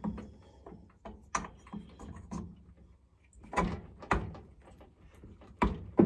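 Scattered knocks and clicks of metal parts being handled on a chainsaw engine clamped in a bench vise. The louder knocks come about halfway through and again near the end.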